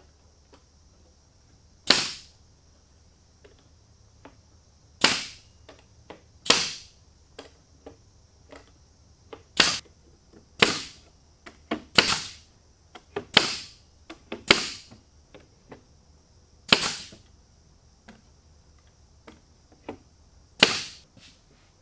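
Ridgid pneumatic nailer firing nails into oak boards: about ten sharp shots at uneven intervals, each with a brief hiss of air, with a few lighter clicks between them. A faint steady high hiss runs underneath.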